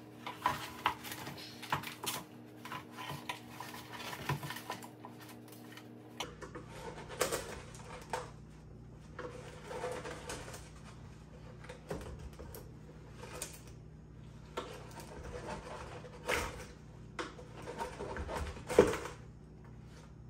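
A hand tool scraping and clicking against a plastic headlight housing as softened old glue is dug out of the lens channel, in irregular short strokes with a sharper knock near the end. Under it runs a faint steady hum that drops in pitch about six seconds in.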